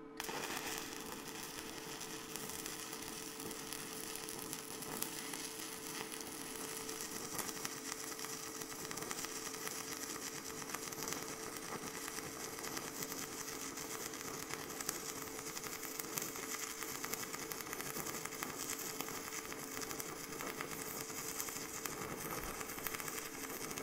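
Stick-welding arc of an ENi55 (ENiFe-CI, 55% nickel) cast iron electrode crackling steadily while beads are run on cast iron, with a steady low hum underneath.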